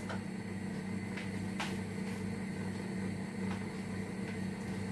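A steady low machine hum, with a couple of faint clicks about a second and a half in.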